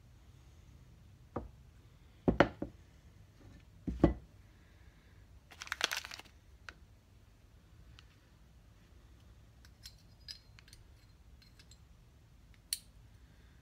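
Hand work on connecting-rod parts: a few sharp metallic knocks and clinks as parts are handled and set down, a brief crinkle of plastic bearing wrapping about six seconds in, then scattered light ticks and one sharp click near the end.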